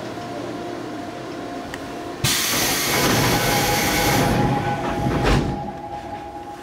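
A Seoul Metro 2000-series subway car's pneumatic doors sliding open: a sudden loud hiss of air starts about two seconds in, lasts about three seconds and ends with a thud as the door stops. Under it runs the steady hum of the stopped train's equipment.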